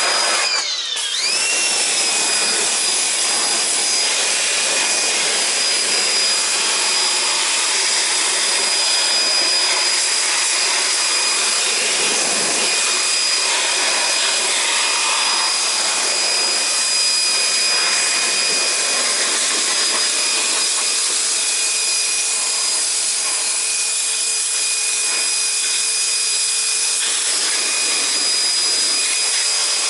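A high-speed electric motor running steadily, a high whine over a steady hiss; the whine dips in pitch about a second in and climbs back.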